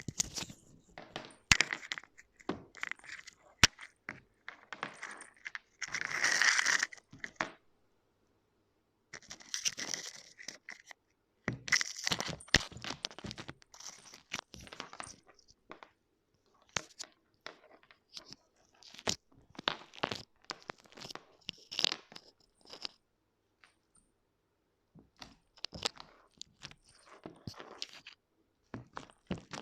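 Fluffy slime being squeezed, folded and stretched by hand, crackling and popping with many small sharp clicks as air bubbles burst, coming in spells with short pauses between.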